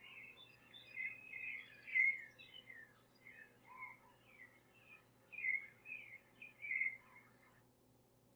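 Birdsong from a forest ambience sound effect: a quick, uneven run of short chirps and twitters that stops suddenly about seven and a half seconds in, over a faint steady hum.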